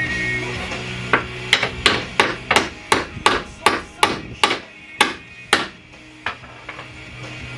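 Hammer blows on car suspension parts: about a dozen quick strikes at roughly three a second, spacing out and stopping before the end.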